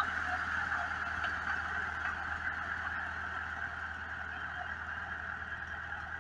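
Engine of a portable band sawmill running steadily with the band blade spinning, as the saw head travels back along its track after finishing a cut. The sound holds steady and grows slowly fainter.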